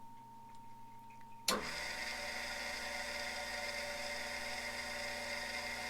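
Harig Super 612 surface grinder switched on about a second and a half in, its grinding-wheel spindle motor coming up and running with a steady, even hum.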